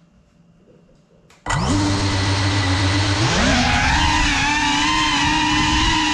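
FPV quadcopter's electric motors spinning up suddenly about a second and a half in, a loud whine with several tones that steps up in pitch a couple of seconds later as the throttle rises for takeoff, then holds steady.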